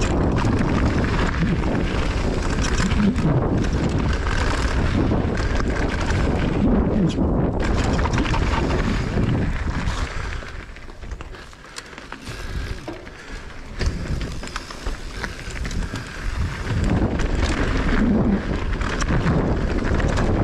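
Mountain bike running down a dirt freeride trail: tyre roar and the bike's rattling, with wind buffeting the microphone. The noise drops off for a few seconds around the middle, then picks up again.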